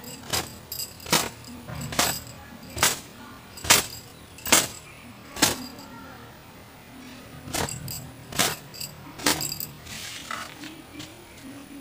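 Long wet hair being slapped with a towel to dry it: sharp snaps in a steady rhythm, roughly one a second, in two runs with a short pause between them.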